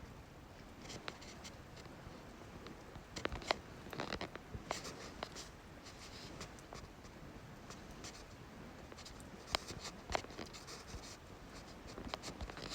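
Wood campfire crackling, with irregular sharp snaps and pops over a soft hiss, busiest about three to five seconds in and again near the end.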